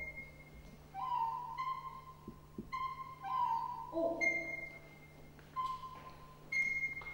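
Live experimental music: a sequence of short, high, held whistle-like notes with pauses between them, and a lower, wavering note about four seconds in.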